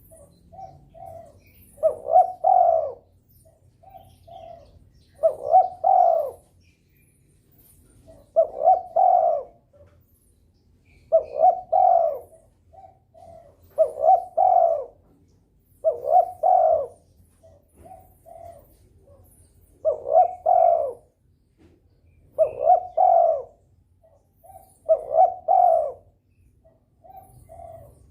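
Spotted dove (derkuku) cooing over and over, a phrase about every three seconds: a few soft short notes, then a louder two-part coo. This is the steady calling of a bird in breeding condition.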